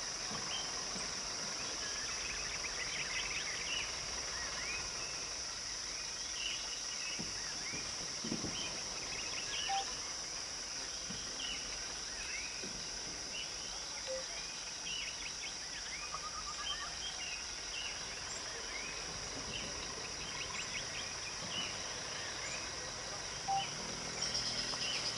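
Outdoor ambience of a steady high insect drone with many short bird chirps and calls scattered through it.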